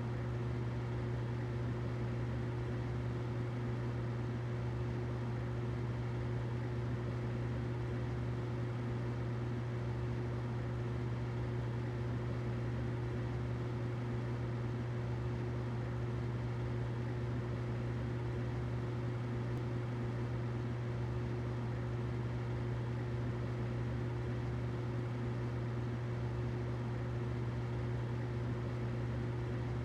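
Humidifier running steadily: a constant low hum with a fainter steady tone above it, over a soft even hiss.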